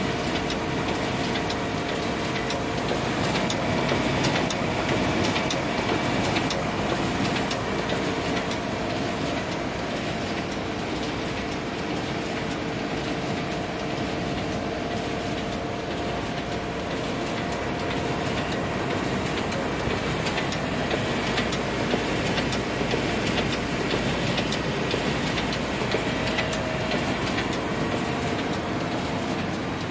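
Xerox Versant 2100 production press running a print job of #10 envelopes, feeding them through to the stacker: a steady mechanical whir with a hum and many quick clicks.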